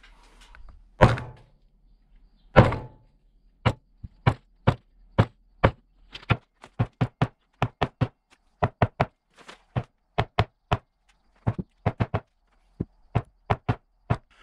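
Ford 7.3 Powerstroke HEUI injector body slammed again and again against a wooden surface to shake an internal part loose. Two heavy knocks, then a long run of lighter knocks at about two to three a second.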